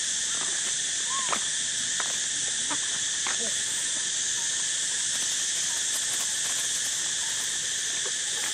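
Steady high-pitched drone of an insect chorus, with a few short squeaky calls scattered over it, mostly in the first few seconds.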